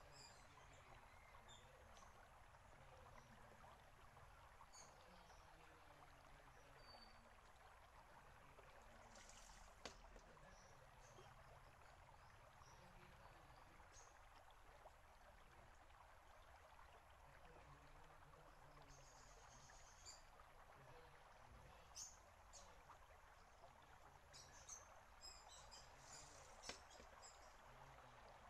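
Near silence: a faint, steady trickle of water running into a bamboo shishi-odoshi, with scattered high bird chirps. There is one sharp knock about ten seconds in.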